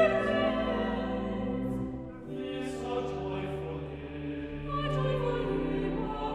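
A choir singing in sustained chords, which change about two seconds in and again near five seconds.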